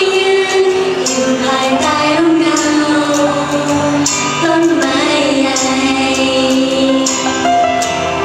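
Loud pop song music with a sung melody in long held notes, played over a stage's speakers.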